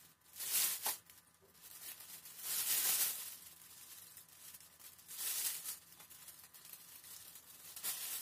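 Plastic roasting sleeve crinkling and rustling in about three bouts as handfuls of marinated chicken wings are pushed into it.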